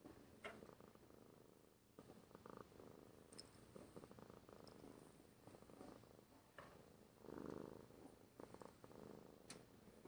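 Domestic cat purring faintly, pressed right against the microphone, with a few soft clicks.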